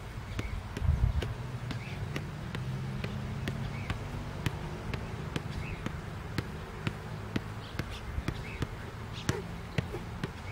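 Soccer ball being kicked up again and again off one foot in a juggling drill: a steady series of light thumps, about two a second.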